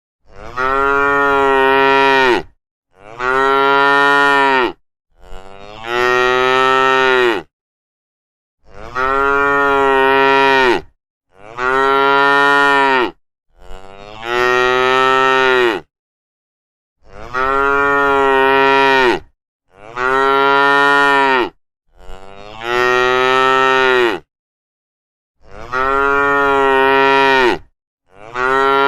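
Cattle mooing: a long run of loud, drawn-out moos, about eleven in a row, each about two seconds long, with short silent gaps between them and the pitch dropping at the end of each call.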